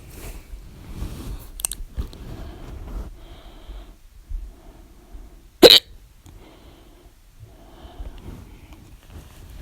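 A person hiccuping loudly: one sharp, sudden hic a little past the middle, far louder than anything else.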